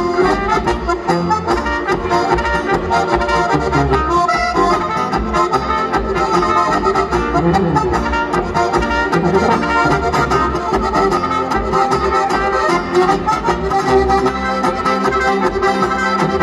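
Live band music: accordion and brass (trumpet, tuba) with guitar, playing a lively tune over a steady bass beat.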